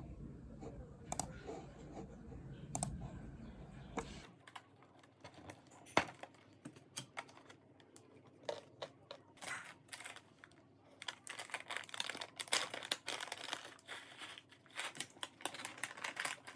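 Typing on a computer keyboard: quick, irregular key clicks, sparse at first over a low hum, which stops about four seconds in, then denser in the second half.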